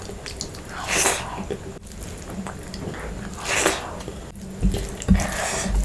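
Close-miked eating of crab curry and rice: chewing and wet mouth sounds, with two louder sharp wet bursts, one about a second in and one about three and a half seconds in.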